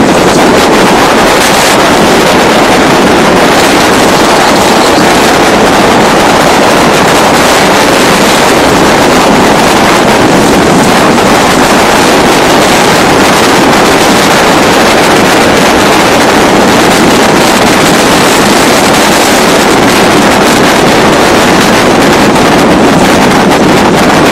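Loud, steady wind noise on the microphone mixed with water rushing and spraying past the hulls of a trimaran under sail.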